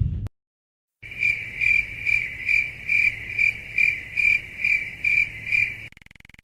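Crickets chirping in an even rhythm, a bit over two chirps a second, starting about a second in and stopping near the end: the stock 'crickets' sound effect used for an awkward silence.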